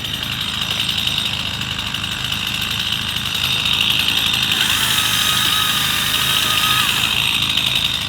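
Chainsaw running steadily with a high whine, getting louder about halfway through.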